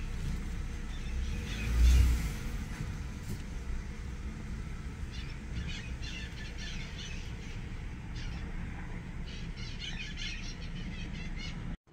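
Outdoor parking-lot ambience: a steady low rumble, swelling louder for a moment about two seconds in, with small birds chirping from about five seconds on. The sound cuts off abruptly just before the end.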